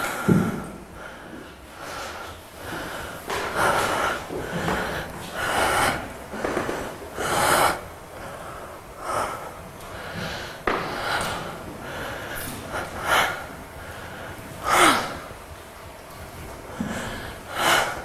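A person breathing hard in loud, irregular gasps and snorting breaths, roughly one a second, some with a short falling voiced edge.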